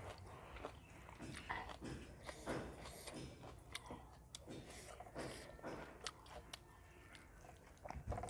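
Close-up chewing of a mouthful of rice and curry, with irregular mouth smacks and clicks, along with fingers mixing rice on a metal plate.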